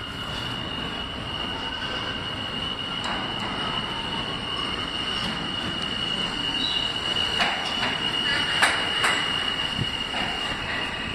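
New York City subway train approaching through the tunnel and running in along the platform, growing louder, with a steady high-pitched wheel squeal. In the last few seconds a series of sharp clacks comes from the wheels as the cars pass.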